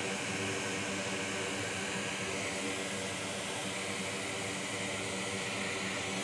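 Steady fan-like whir and hiss with a low hum underneath, unchanging throughout.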